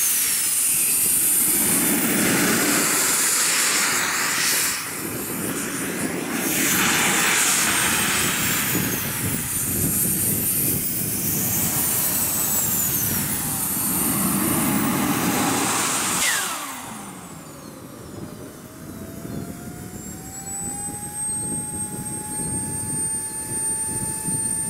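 Model jet turbine whining at taxi power, its pitch rising and falling with the throttle. About 16 seconds in it is shut down and the whine falls away. A lower, steady electric whine then rises and holds until it stops near the end, typical of the starter motor spinning the turbine to cool it after shutdown.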